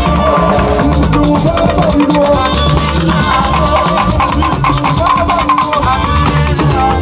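Live band music with drums and shakers playing a steady, dense groove with a strong bass line.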